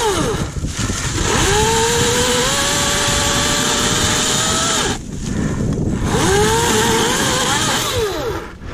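Two-stroke chainsaw revved up to full throttle and held there twice, finishing a cut through a downed log. Each run lasts a few seconds, and the engine falls back toward idle at about five seconds and again near the end.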